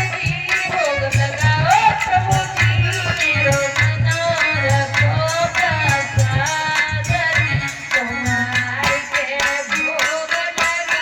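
Indian devotional bhajan music: a sliding, ornamented melody line over a steady hand-drum rhythm of tabla or dholak with regular deep bass strokes and light jingling percussion.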